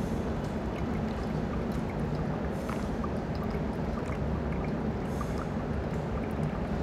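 Hot water poured in a steady thin stream from a gooseneck kettle onto coffee grounds in a V60 dripper: a 75-gram pour in a pour-over brew.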